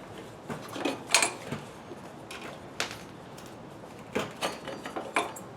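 Irregular clinks and knocks of the Harley's rear wheel and drive belt being handled as the belt is worked off the rear pulley.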